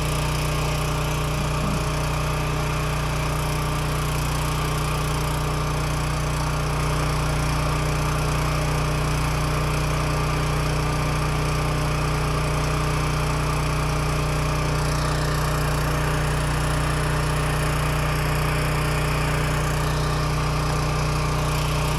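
Champion 7000-watt open-frame (non-inverter) portable generator running steadily under about 2000 watts of load: a space heater on high plus two 250-watt bulbs.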